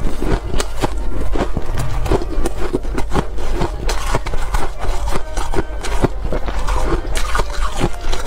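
Ice being chewed, close to the microphone: dense, irregular crunching of frozen ice crumbles, several crunches a second. A low, steady hum runs underneath.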